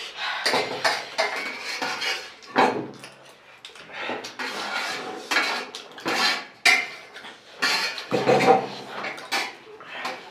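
Spoons clinking and scraping against plates in quick, irregular clatters as spicy chatpate is eaten in a hurry.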